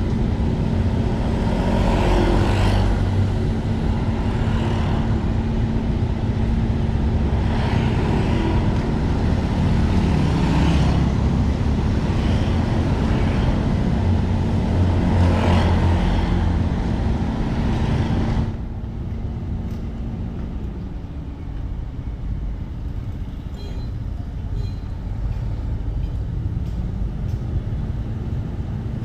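A moving vehicle's engine hum and road noise, with several swells of traffic noise. About two-thirds of the way through, the hiss cuts off suddenly and the sound becomes quieter, leaving the steady engine hum.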